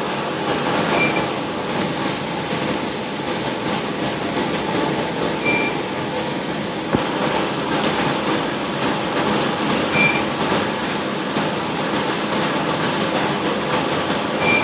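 Coffee roaster running: a steady rattling rush, with a short high chirp about every four and a half seconds.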